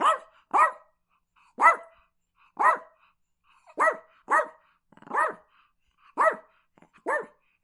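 A dog barking: nine short barks at roughly one a second, with silent gaps between them and two pairs of barks in quick succession.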